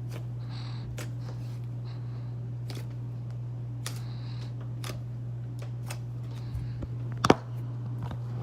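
Slime being squeezed and poked by hand, giving scattered sharp sticky clicks and pops, the loudest about seven seconds in, over a steady low electrical hum.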